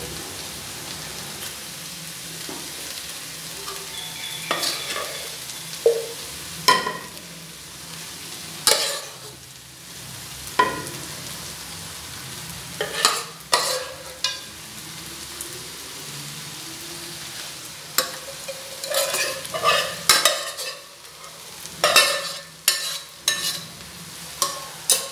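A metal spoon clinking and scraping against metal cookware as thick chicken curry is spooned out of a saucepan and spread over boiled rice in an aluminium pot: sharp knocks scattered through, clustered near the middle and towards the end, over a steady hiss.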